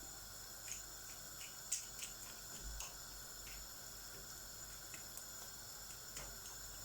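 Faint, irregular small pops and clicks over a low steady hiss, typical of a pan of paella rice simmering gently in stock.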